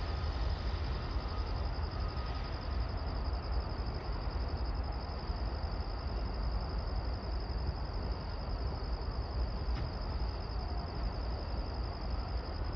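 Low, steady rumble of a distant passenger train moving slowly through a rail yard, with a steady high-pitched trill over it.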